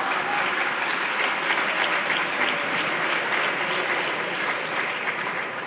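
Parliament members applauding, a dense steady clapping that slowly tapers off near the end.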